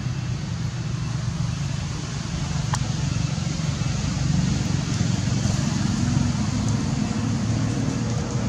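Steady low rumble with a hiss over it, with one faint click about three seconds in.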